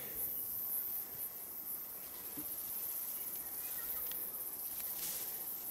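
Steady high-pitched chorus of insects in the bush, with a few faint ticks and rustles from manuka twigs being snapped off and handled.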